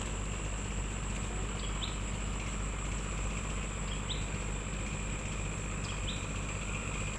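A boat engine running steadily at a constant pace, with a bird's short rising chirp repeating about every two seconds over it.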